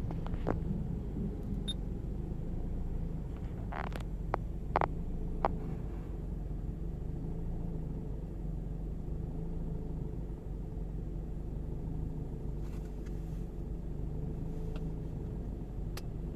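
Scion xB's four-cylinder engine idling roughly just after a fill-up of the gas tank: a steady low rumble, with a few sharp clicks about four to five seconds in. The owner suspects a faulty EVAP canister purge valve, though no EVAP code has been set.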